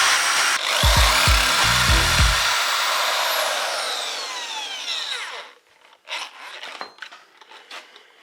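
Handheld rotary cutting tool grinding metal at an old wheel bearing, a loud hissing grind that falls in pitch as the tool winds down and stops about five and a half seconds in. A few light clicks and knocks follow.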